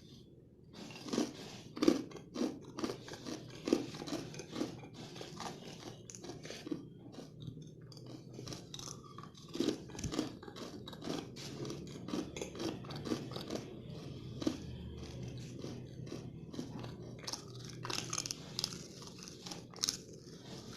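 Close-up chewing of kadalai mittai, a hard peanut-and-jaggery candy, with sharp, irregular crunches several times a second.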